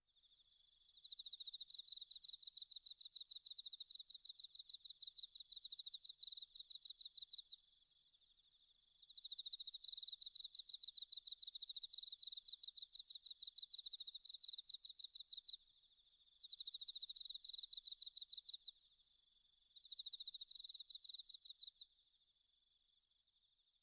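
Crickets chirping in fast, pulsing high trills: loud bouts of a few seconds alternate with fainter chirping in between.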